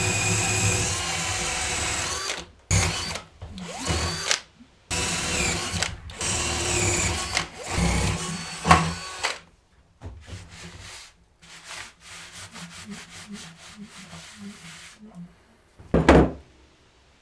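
Electric drill drilling through in a series of runs, its motor giving a steady high whine, then a stretch of quick short pulses, about three to four a second, and one last short loud burst near the end. The drill is overloaded: it has been smoking and giving off a burning smell.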